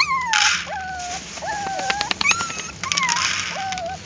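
Dogs whining in short, high, wavering whimpers, one after another. Dry kibble rattles and patters into a plastic dish, with a plastic bag rustling, in two bursts about half a second and three seconds in.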